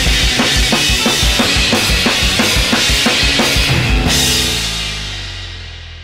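The ending of a band's song: the drum kit keeps a steady beat of bass drum and snare under the band, then about four seconds in comes a final hit and chord that is left to ring out and fade away.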